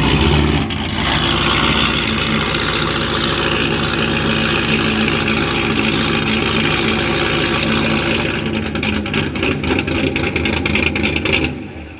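Chevrolet C7 Corvette's V8 engine running loud and being revved through its quad exhaust tips, with a rapid crackle for the last few seconds before the sound drops away suddenly near the end.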